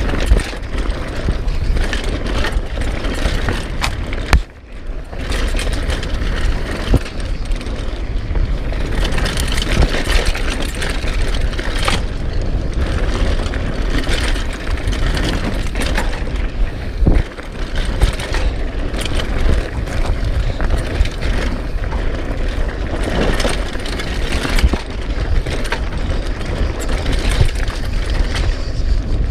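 Mountain bike descending a rough dirt trail at speed: wind rumbling on the microphone, tyres rolling over dirt and stones, and the bike rattling with frequent knocks over bumps. It goes briefly quieter about four and a half seconds in.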